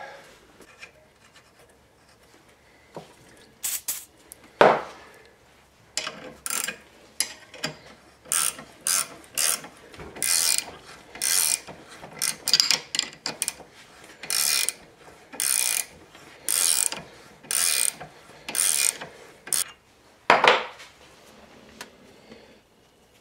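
Threading die turned by hand on a transmission drain plug, re-cutting its threads: a run of short rasping, clicking strokes, about one a second. A couple of knocks come before it, and a loud knock follows near the end.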